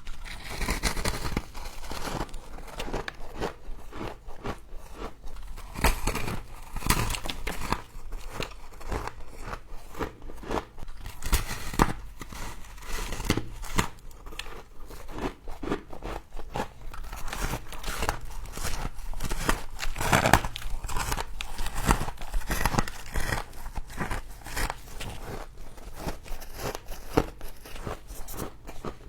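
Frost being crunched and chewed close to the microphone: a dense, continuous run of crisp crackles and crunches.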